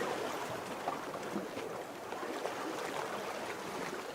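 Steady wash of sea water against shoreline rocks.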